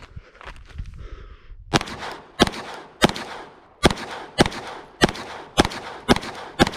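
A 9mm Glock 17 Gen 5 pistol fitted with a PMM compensator fires a steady string of nine shots, about 0.6 s apart, starting about 1.7 s in. Before the first shot there is a short rustle of clothing as the pistol is drawn from concealment.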